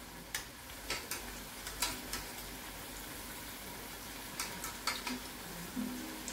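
Carrot and courgette balls frying in shallow oil in a stainless steel saucepan, a steady sizzle, with a utensil clicking lightly against the pan several times as they are turned. Guitar music comes in faintly near the end.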